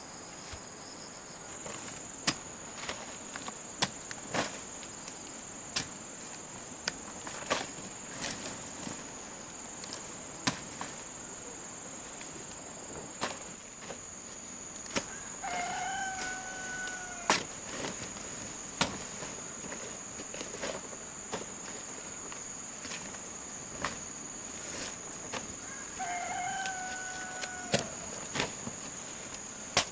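A rooster crowing twice, about ten seconds apart, over a steady high-pitched drone of insects. Scattered sharp knocks, the loudest sounds here, come throughout.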